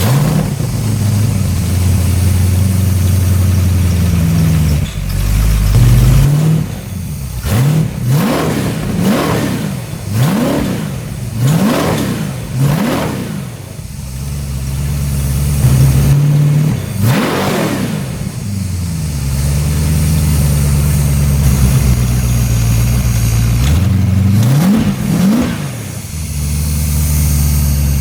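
Chrysler 360 cubic-inch small-block LA V8 with a mild hydraulic camshaft and electronic fuel injection, idling and being revved: a string of quick throttle blips about a third of the way in, one bigger rev past the middle, and two more quick blips near the end, each dropping straight back to a steady idle.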